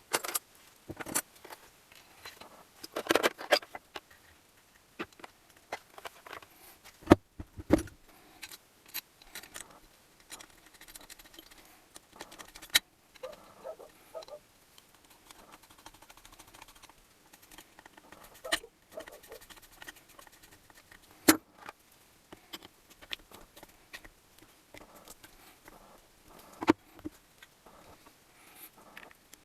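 Irregular clinks, clicks and knocks of small metal engine parts and hand tools being handled and set down on a workbench during engine assembly.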